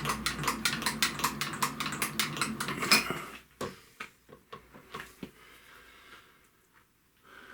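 Rapid metallic clicking, about eight clicks a second, from a hand tap wrench cutting threads for a helical thread insert in an aluminium casting. A low hum under it stops a little over a second in. The clicking stops about three seconds in, followed by a few scattered clicks and knocks.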